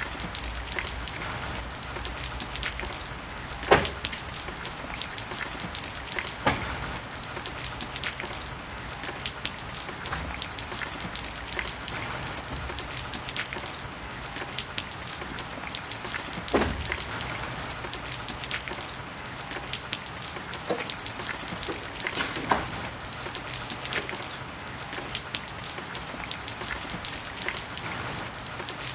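Steady rain pattering, a dense fine crackle of drops, with four louder knocks or heavy drips spread through it.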